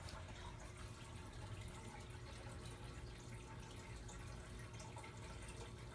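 Faint, steady background hiss with a low hum: room tone.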